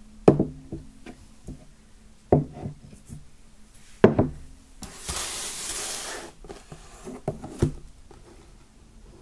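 A metal-lined tankard and its cardboard box handled on a wooden table: a few hollow knocks, a rustling slide of about a second and a half near the middle as the tankard goes back into the box, then two more knocks as the box is set down.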